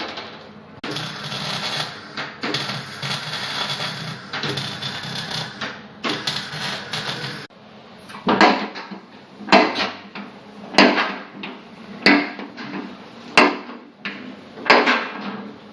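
Workshop work noise: several seconds of rough, hissing noise in a few long stretches, then six sharp knocks about 1.3 s apart, each with a short ringing tail.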